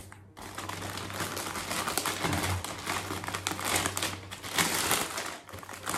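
Clear zip-top plastic bag crinkling and rustling in irregular bursts as rubber-coated steel hooks are worked out of it.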